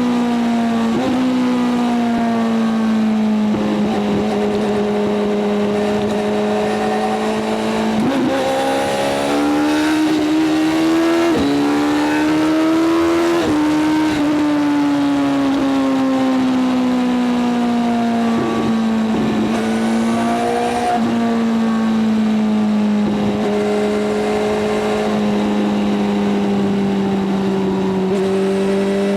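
Motorcycle engine at highway cruising speed, one continuous engine note. It falls slowly at first, climbs for a few seconds through the middle, then eases back down and holds steady.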